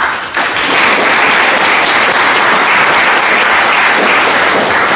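An audience applauding, starting suddenly and holding steady.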